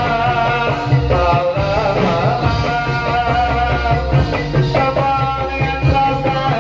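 Live music for a Topeng Ireng dance: a held, wavering melody over a steady drum beat and heavy bass.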